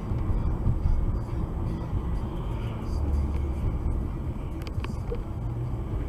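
Steady low rumble of engine and tyre noise inside a moving car, picked up by the dashcam's microphone.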